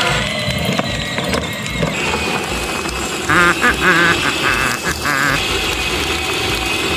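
Background music with a steady beat. From about three seconds in, six short warbling sounds follow one another in quick succession.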